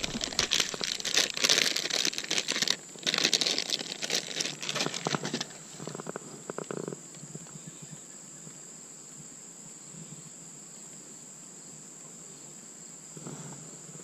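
Plastic bag of soft-plastic fishing baits crinkling as it is handled for the first five seconds or so, then a steady high-pitched insect drone with only faint handling sounds.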